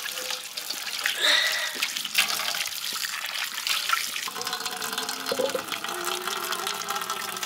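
Water running and splashing steadily, starting suddenly.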